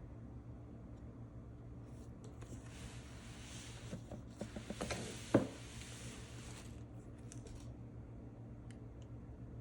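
A drawing tool rubbing across paper in strokes for a few seconds, with several light taps and one sharper knock near the middle, over a steady low hum.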